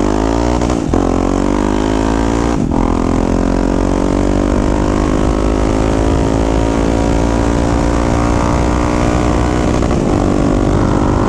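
Yamaha XT 660's single-cylinder engine, fitted with an aftermarket stainless steel exhaust tip, pulling away under acceleration: the note rises, dips at gear changes about a second and two and a half seconds in, then climbs steadily.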